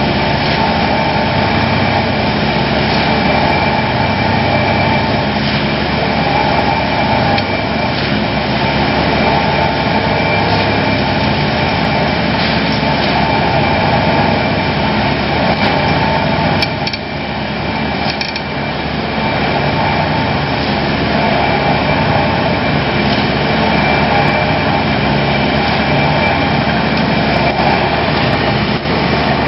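Excavator-mounted telescopic vibratory pile hammer running with the excavator's diesel engine: a loud, steady mechanical drone, briefly dropping in level a little over halfway through.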